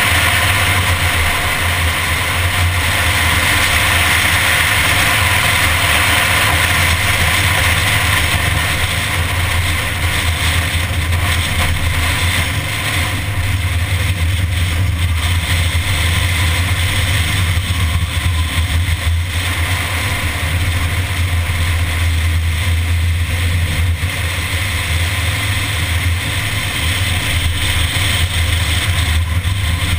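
A Mini's engine running at a steady road speed, mixed with the rush of wind and road noise picked up by a camera mounted on the hood. The drone holds steady, with only slight dips in loudness and no sharp revs.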